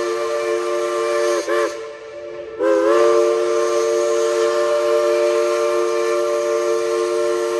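Steam locomotive's chime whistle blowing long, a steady three-note chord. It breaks off for about a second after a second and a half, then comes back on with a short upward slide in pitch.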